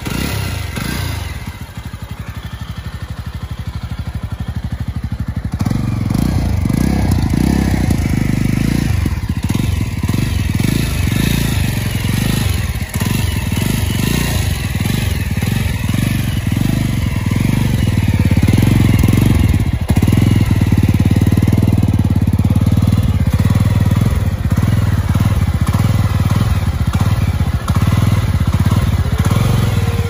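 Jawa 42 2.1 motorcycle's single-cylinder engine idling through its stock dual exhaust, a steady rapid exhaust beat. It gets louder over the first few seconds, then holds even.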